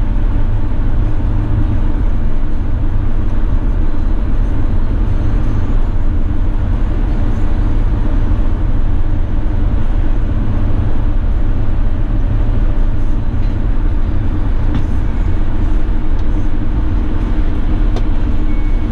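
In-cab noise of a 2016 Mercedes-Benz Sprinter 519 CDI minibus cruising at motorway speed: a steady, deep rumble of tyres, wind and its V6 diesel engine.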